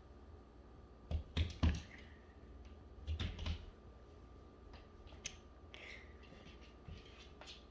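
A cat's paws and claws tapping and skittering on a laminate wood floor as it pounces and plays. There is a quick run of sharp taps and thumps about a second in, another cluster about three seconds in, then a few scattered lighter clicks.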